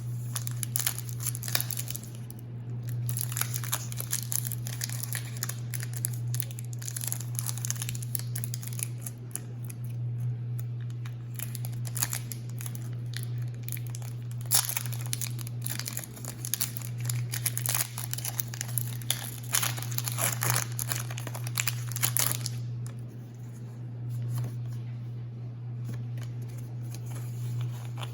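Foil wrappers of Pokémon Shining Fates booster packs crinkling and tearing as they are handled and opened, with dense crackling that dies down about 22 seconds in. A steady low hum runs underneath.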